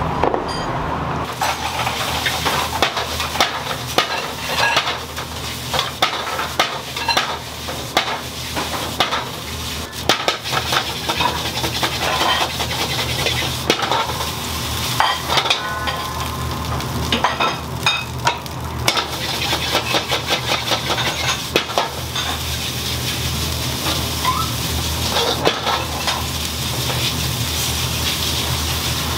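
Food sizzling in a pan, with frequent clacks and scrapes of a metal utensil against the pan over a steady low hum.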